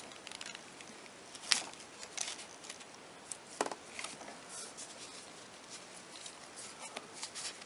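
Fingers working a rubber grommet along a taped wiring harness: soft rubbing and rustling with scattered small clicks, two sharper clicks about a second and a half and three and a half seconds in.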